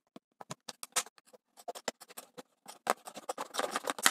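Scissors cutting through a thin plastic yogurt-container lid: a run of short, crisp snips and crackles, thickening into denser, continuous cutting near the end.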